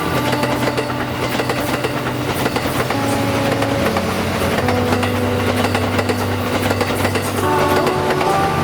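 JR West 87 series Mizukaze diesel-electric train passing close by, its wheels clattering over the rails with its engines running under the rolling noise.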